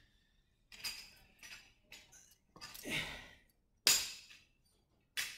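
Light metal barbell clinking and rattling as it is picked up and moved: several separate knocks, the sharpest about four seconds in and another near the end.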